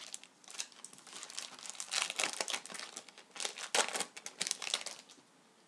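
Crinkling of a hockey card pack's wrapper being handled and opened, in irregular crackles that stop about five seconds in.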